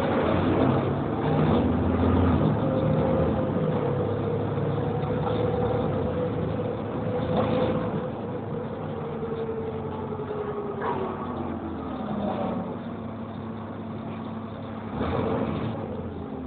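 Volvo B7TL double-decker bus on the move, heard from inside the passenger saloon: diesel engine and drivetrain running with a low hum and a thin whine that holds steady, then falls in pitch about eleven seconds in.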